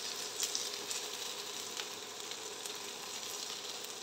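Capsicum, paneer and vegetables sizzling in hot ghee in a wok as they are lightly fried, stirred with a silicone spatula that gives a few light clicks against the pan.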